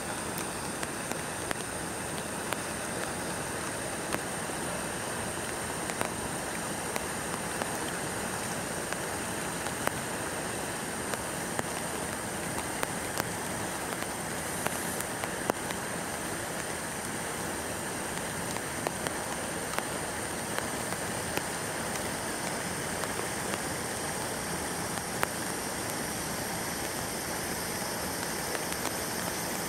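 Steady rain falling, with many scattered sharp taps of drops striking nearby surfaces.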